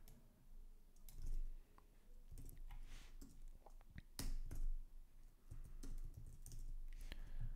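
Computer keyboard keystrokes and clicks, scattered and irregular, while code is edited.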